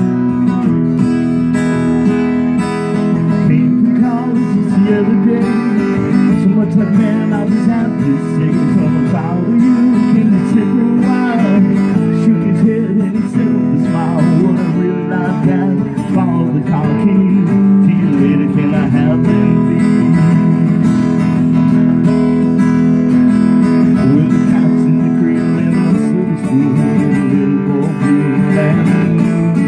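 Live duo strumming acoustic guitars, a steady, continuous passage of music.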